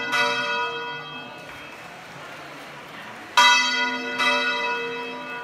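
Church bell Santa Anna being swung full-circle by hand (revolteig), its clapper striking once just after the start and then twice in quick succession about three and a half seconds in, each strike ringing on and slowly dying away.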